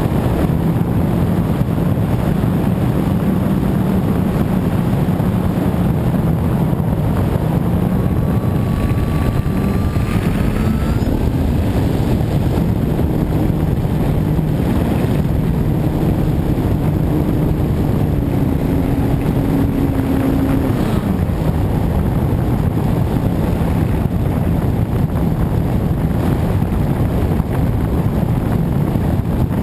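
Radio-controlled model airplane in flight: heavy wind rush on the microphone, with the motor and propeller droning underneath, their pitch stepping up and down with the throttle.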